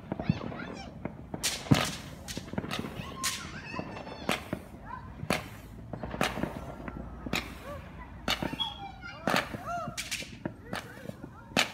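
Fireworks going off, an irregular string of sharp cracks and bangs, more than a dozen of them. Short rising-and-falling whistles come between some of the cracks.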